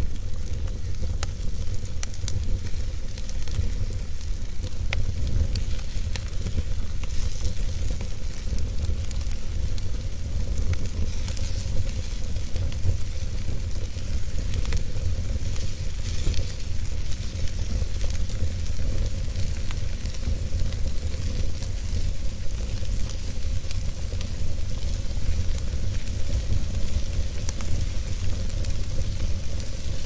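Wood fire burning in a fireplace: a steady low rumble of flame with a constant hiss and frequent small crackles and pops from the burning logs.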